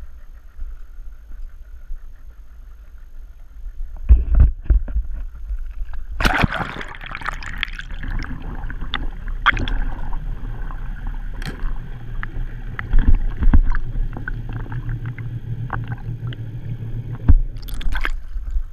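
A camera plunged into sea water: a low steady hum above the surface, a loud splash and rush as it goes under about six seconds in, then muffled underwater wash with scattered clicks and a low hum, and another splash near the end as it breaks the surface.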